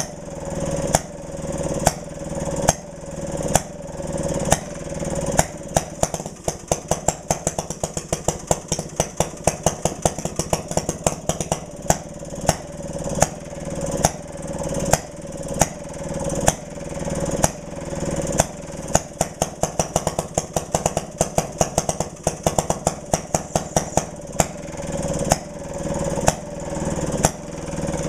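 1928 Maytag Model 92 long-base two-stroke, single-cylinder engine running, with sharp exhaust pops. It fires about once a second for most of the time and breaks into quick runs of rapid firing about six seconds in and again about eighteen seconds in.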